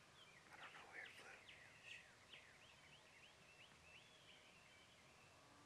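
Faint, distant wild turkey gobble: a short rattling burst about half a second in, followed by a run of quick, high, separate notes.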